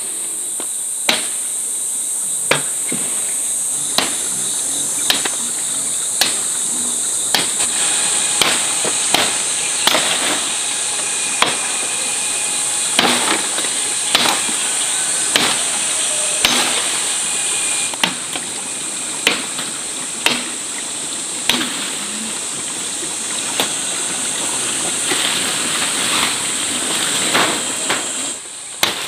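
Chopping blows, about one a second, from manual work with a blade or tool, over a steady high-pitched drone of insects.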